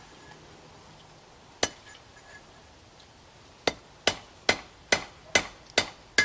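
Hammer blows on steel at the anvil, cutting off a piece of hot flattened rebar: a single ringing blow, then about two seconds later seven quick blows, a little over two a second.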